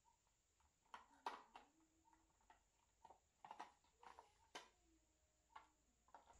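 Faint clicks and knocks of hard plastic parts as a folding side-mirror housing is handled and its motor unit worked loose, in scattered sharp taps: a few about a second in, a cluster around three and a half to four and a half seconds, and one more near the end.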